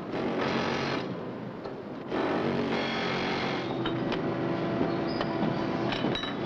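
Factory machinery running, with two bursts of hiss in the first few seconds and scattered metallic clicks toward the end.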